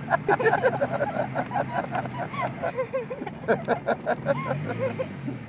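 A woman and a man laughing in quick repeated bursts over the steady hum of an old Peugeot saloon's engine, heard from inside the moving car.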